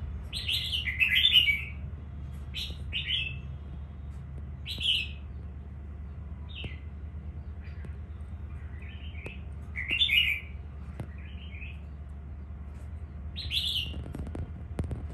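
Red-whiskered bulbul, a newly caught wild bird that has not been trained, singing short phrases every two to four seconds. A steady low hum runs underneath, and a few faint clicks come near the end.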